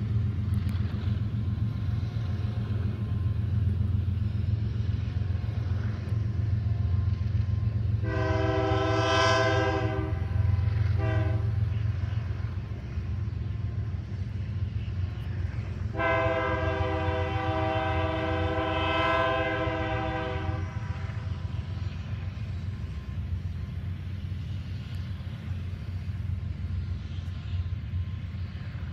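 Freight locomotive air horn sounding over the steady rumble of a passing double-stack intermodal freight train. There is a long blast about eight seconds in, a short one right after, then a longer blast of about four and a half seconds.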